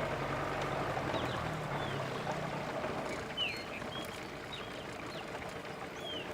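A boat motor hums steadily and fades away over the first two seconds or so, leaving a steady hiss. Birds chirp in short falling notes throughout.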